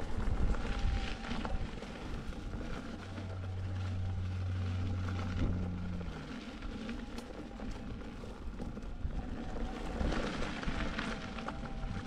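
Electric unicycle rolling along a gravel and sand trail: a steady rumble of tyre and wind noise, with a steady low hum that lasts about three seconds near the middle.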